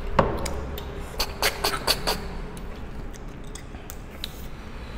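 Short, sharp sucking and slurping noises of cooked freshwater snails being sucked out of their shells. Several come close together in the first half, with fainter ones later.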